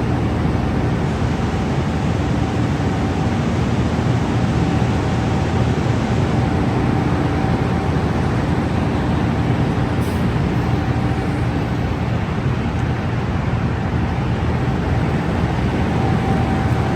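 Steady low drone of a beet truck and sugar beet piler machinery running, with a faint steady hum over it.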